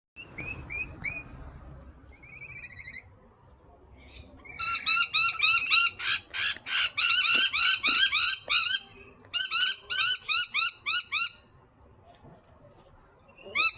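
Parrot calling: a few short calls at the start, then a long run of loud, sharp squawks repeated rapidly, a couple or more each second, from about four to eleven seconds in.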